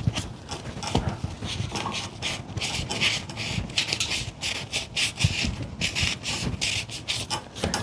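A rag scrubbing a metal engine surface clean with brake cleaner: quick, irregular rubbing strokes, several a second, with the odd light knock.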